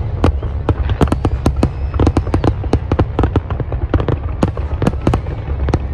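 Fireworks display bursting: rapid, irregular cracks and bangs, several a second, over a steady low rumble.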